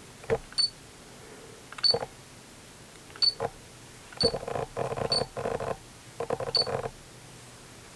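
Six short, high electronic beeps from a digital camera, about a second apart, mixed with clicks and muffled handling noise as its buttons are pressed.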